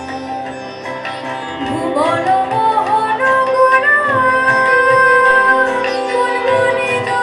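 Two women singing a song into microphones; about two seconds in the melody glides upward, and then long notes are held.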